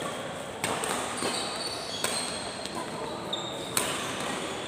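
Badminton rackets striking a shuttlecock during a doubles rally: three sharp hits roughly a second and a half apart. Brief high squeaks of shoes on the court mat come between the hits.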